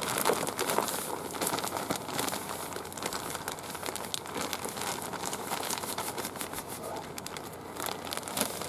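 Crinkling of a large groundbait bag as it is tipped and shaken, with dry chinu groundbait (Kishu Mach) pouring out of it into a plastic tub. Dense small crackles over a steady hiss.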